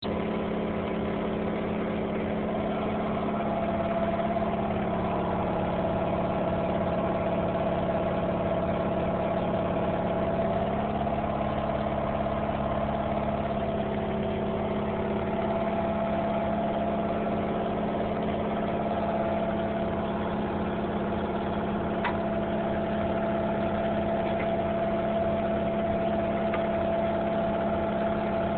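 A steady motor hum with several held tones, unchanging throughout, with one faint click about 22 seconds in.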